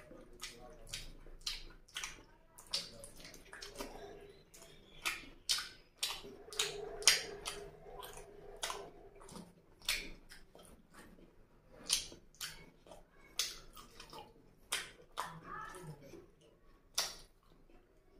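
Wet, irregular smacking and squelching clicks of a person chewing a mouthful of oily curry and rice with open lips, along with fingers squishing the gravy-soaked food.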